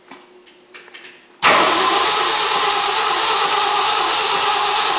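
Ford 352 V8 engine firing up suddenly about a second and a half in and running loud and steady for about four seconds before dying away.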